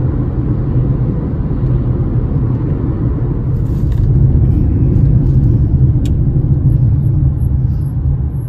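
Car cabin noise while driving: a steady low rumble of engine and tyres on the road.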